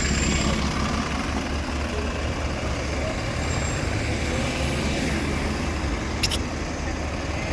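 Bus diesel engine idling steadily, with a brief sharp click about six seconds in.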